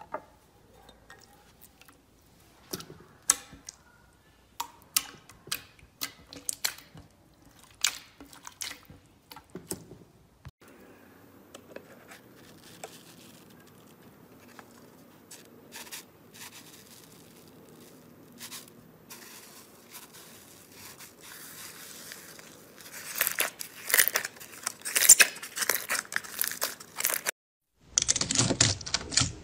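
Slime handled close to the microphone: scattered sticky clicks and pops for about the first ten seconds, then a soft crackle that builds into dense crackling. After a brief gap near the end comes loud crunching as clear slime packed with beads is pressed with a plastic scraper.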